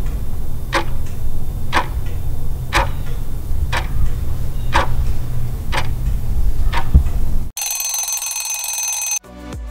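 Countdown-timer clock sound effect: about seven ticks, one a second, over a steady low rumble, then an alarm-clock bell rings for about a second and a half as time runs out. Music starts again right at the end.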